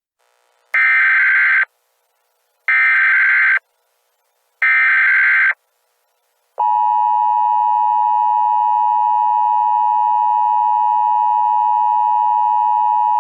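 Emergency Alert System tones: three short screeching bursts of SAME digital header data, each about a second long with a second's gap between them. Then, from about six and a half seconds in, the steady, unbroken two-tone EAS attention signal.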